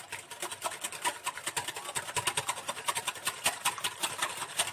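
Liquid batter of oil, milk, water, egg and yeast being stirred briskly in a mixing bowl, the utensil clicking against the bowl in a fast, even rhythm of several strokes a second.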